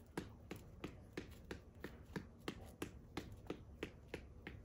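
Fists punching a fight reflex ball, a ball on an elastic cord fixed to a headband, in a steady non-stop drill of about three sharp hits a second. The pattern is a double punch with the lead hand, then a double with the rear hand.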